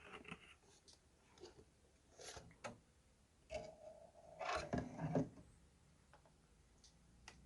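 Funko Pop cardboard boxes and plastic packaging being handled: light rubbing and rustling with a few soft taps and clicks, a little louder in the middle.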